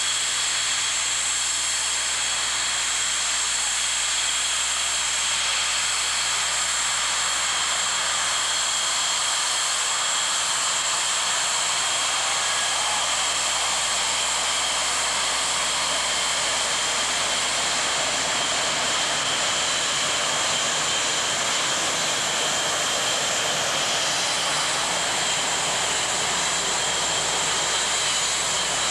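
Jet engines of Blue Angels F/A-18 Hornets, a steady loud rushing noise with an even high-pitched whine that holds without a clear rise or fall.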